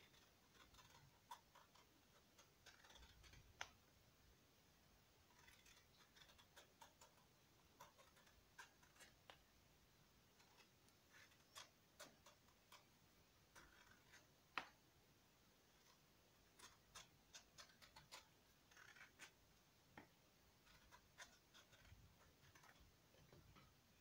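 Faint, irregular clicks and short scrapes of a blade peeling the skin off a ripe mango.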